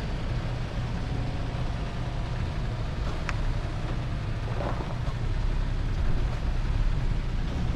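Pickup truck driving slowly, its engine and tyres making a steady low rumble.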